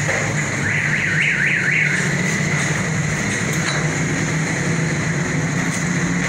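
Metal lathe running with a steady mechanical hum. About a second in, a warbling tone sweeps up and down about four times over roughly a second.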